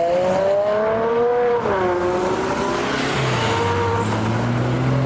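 Car engine accelerating away, its pitch climbing and then dropping at a gear change about one and a half seconds in before holding steady. A second, deeper engine note rises over the last couple of seconds.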